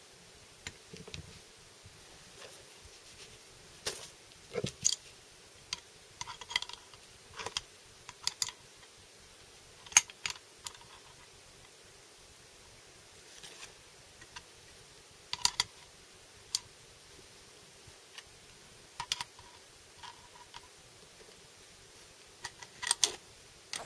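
Irregular sharp metal clicks and clinks from large slip-joint pliers gripping and levering a bolt threaded into an anchor in a brake caliper piston, working to pull the piston out. The clicks come singly and in small clusters, the loudest about halfway through.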